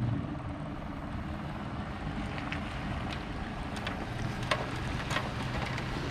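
A boat's engine running steadily, with wind on the microphone and a couple of light knocks about four to five seconds in.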